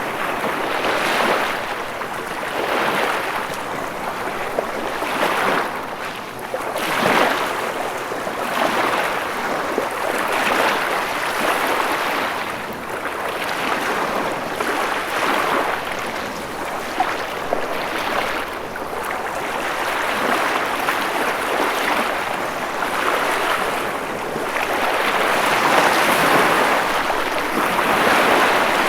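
Ocean waves washing onto a shore, a continuous hiss of surf that swells and eases every couple of seconds.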